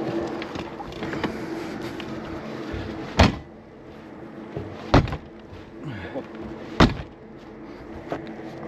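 Three loud bangs about two seconds apart from the hinged side compartment doors of a box trailer being slammed shut.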